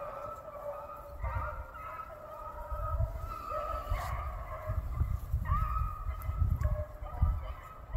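A pack of rabbit dogs baying in the distance as they run a rabbit's trail, several drawn-out calls overlapping, over a low, gusty rumble.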